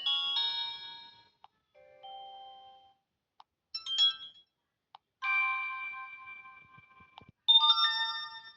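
Prestigio Muze 3231 4G smartphone playing its built-in ringtones and notification tones one after another. About five short electronic chimes and melodies follow each other, each starting abruptly. The longest, a few seconds in, fades out over about two seconds.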